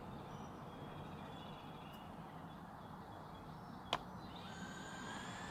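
Quiet outdoor background with faint bird chirps and a single sharp click about four seconds in.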